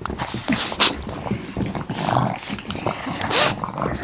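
Boston terrier puppies playing: a jumble of short puppy noises, with two louder bursts about a second in and near the end.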